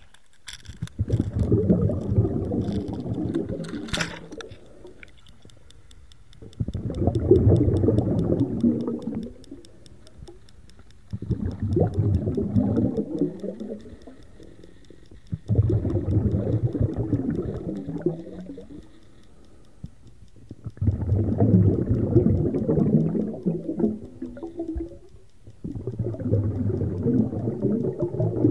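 Muffled underwater rush of moving water heard through a GoPro's waterproof housing, swelling and fading in surges about every four to five seconds. A few sharp clicks in the first few seconds.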